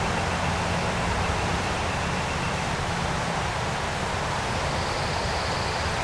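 Steady rushing outdoor background noise, with wind fluttering on the microphone, and a faint thin high whine near the end.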